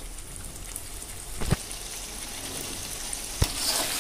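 Thick chicken curry sizzling in a metal kadai as it is stirred with a metal spoon, the spoon knocking sharply against the pan twice, about a second and a half in and near the end.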